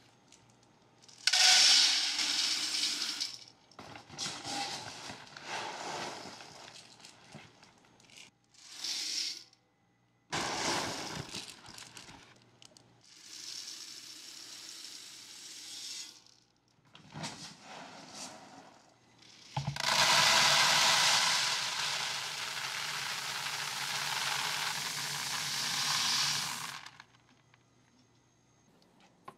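Dry soybeans scooped from a sack and poured into containers: several bursts of a hissing rush as the beans cascade, the longest lasting about six seconds in the second half.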